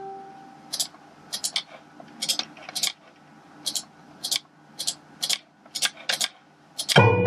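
Irregular clicks of a computer mouse and keyboard, many in quick pairs. A synthesized plucked note from the score's playback fades at the start, and playback of plucked notes starts again near the end.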